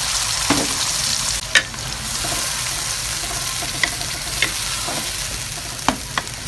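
Freshly added blended spice paste sizzling in hot oil in a pan, stirred with a wooden spatula. The spatula knocks sharply against the pan about six times, loudest about a second and a half in.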